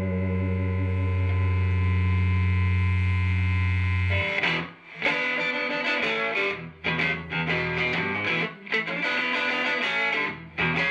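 Fender Stratocaster electric guitar played through the overdriven channel of a Phaez Dragonfly amp. A long sustained note rings for about four seconds and is cut off sharply, then short blues phrases of picked notes follow with brief gaps between them.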